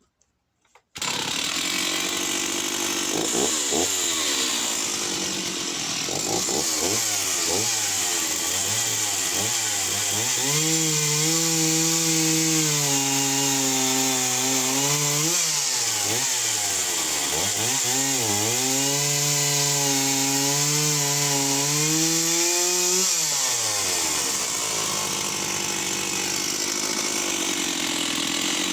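Stihl 038 AV 61cc two-stroke chainsaw running at high revs and cutting oak. Its engine note drops and holds steady under load through two long cuts, about ten and eighteen seconds in, and climbs again after each.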